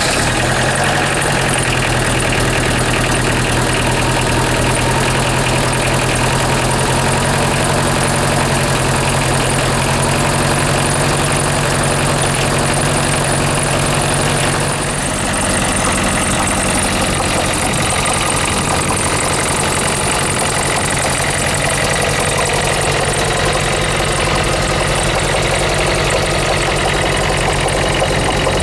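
Toyota 2C-T four-cylinder turbo diesel idling just after a cold start, with a diesel knock; about halfway through the idle changes and turns rougher. The uneven cold idle is the erratic start that the owner traced to bad valve clearances.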